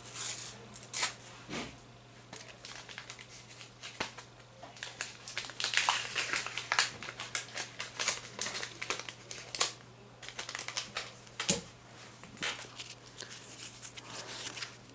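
Foil sticker packet crinkling and rustling in the hands as it is torn open and the stickers are pulled out: irregular crackles, thickest in the middle.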